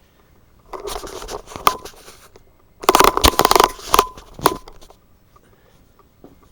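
Paper or plastic packaging being handled, crinkling and rustling in two bursts, the second one louder, then dying down near the middle.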